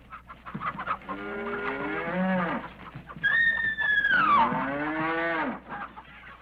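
Cattle mooing: two long moos, the second starting higher and sliding down in pitch partway through.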